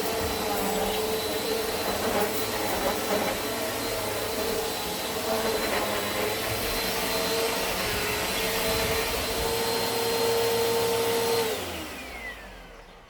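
Eureka AirSpeed Plus NEU110 compact vacuum cleaner running steadily on a rug. It is switched off about eleven and a half seconds in, and its motor whine falls in pitch as it spins down.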